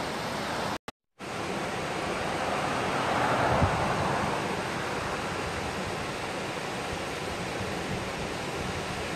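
Small mountain stream rushing and splashing down a bed of rocks, a steady rush that drops out completely for a moment just under a second in and swells slightly around three to four seconds in.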